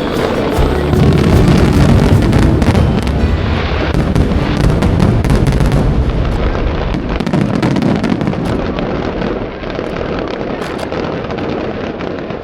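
Fireworks display: a dense barrage of bursts and crackling with heavy low booms, thinning out and growing quieter over the second half.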